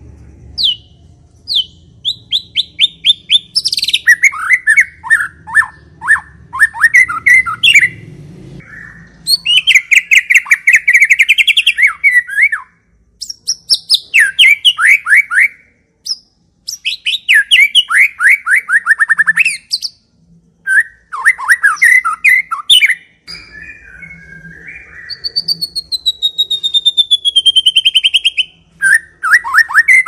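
White-rumped shama singing in loud, varied phrases of fast repeated notes and chattering trills, each a few seconds long with short pauses between. About 25 s in comes a long, falling whistle.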